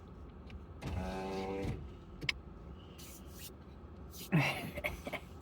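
A car's electric window motor running for about a second with a steady whine. A short, breathy vocal noise comes near the end.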